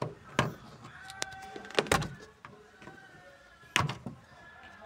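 Hard plastic clicks and knocks with brief squeaky creaks as a Honda Civic's sun visor is worked by hand at its retaining clip. Several sharp clicks, the loudest about two seconds in and again near the end.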